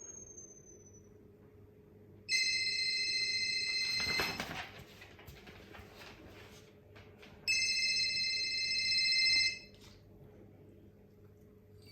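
Electronic telephone-style ringing, played as a test sound, in two steady ringing bursts of about two seconds each, a few seconds apart. A brief scuffling noise comes just as the first burst ends.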